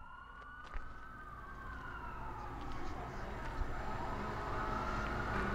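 Emergency vehicle siren in a slow wail, its pitch rising and falling over a few seconds and growing louder, over a low rumble, with a single click about a second in.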